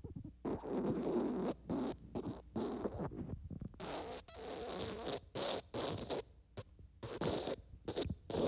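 Wet fart sound effect: a long, wet sputter broken into many short, irregular bursts.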